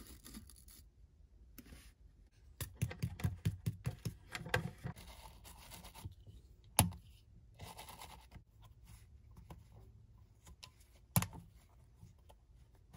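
Paper towel rubbing and scrubbing over a vintage calculator's grimy plastic case. There is a quick run of short scratchy strokes, a brief rub about eight seconds in, and a couple of sharp clicks.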